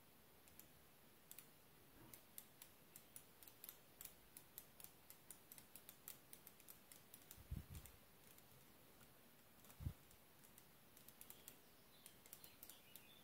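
Lego Technic hyperbolic spinner turning, its plastic parts making faint, light clicks about three times a second, with two dull thumps partway through.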